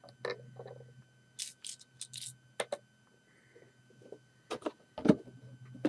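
Small plastic LEGO pieces being handled and set down on a display tray: a series of light clicks and rustles, the loudest a knock about five seconds in. A faint steady low hum lies underneath.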